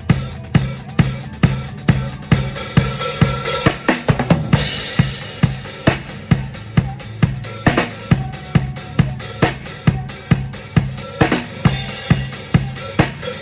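Drum kit playing a steady beat at a band's sound check: kick and snare hits about twice a second, with a cymbal crash a few times and low notes moving underneath.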